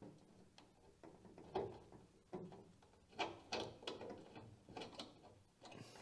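Metal pick tool prying at the small plastic retaining clip on a hood gas strut's ball-joint end: a string of faint clicks and scrapes as the clip is worked loose.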